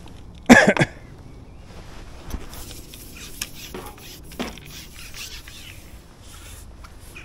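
A man coughing twice in quick succession about half a second in, from lungs still weak after COVID, followed by a few faint clicks.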